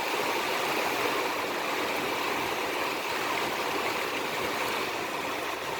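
Torrential rain pouring down in a heavy, prolonged downpour: a steady, even hiss of falling water.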